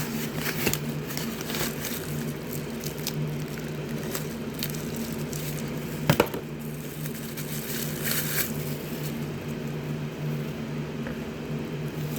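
A mason jar wax warmer and its packaging being handled: scattered rustles and light clicks, with one sharp knock about six seconds in, over a steady low hum.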